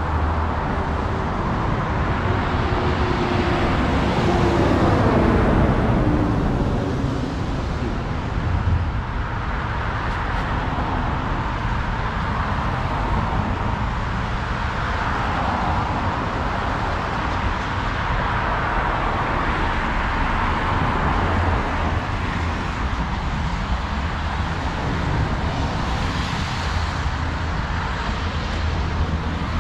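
Street traffic noise with steady low rumble. A vehicle passes about four to six seconds in, swelling louder with a falling pitch.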